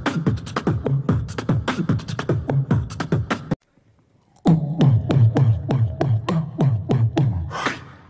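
Beatboxing: a fast, steady beat of mouth-made kick-drum thumps and snare-like clicks with a low bass line. It breaks off for about a second near the middle, then picks up again, with a longer cymbal-like hiss near the end.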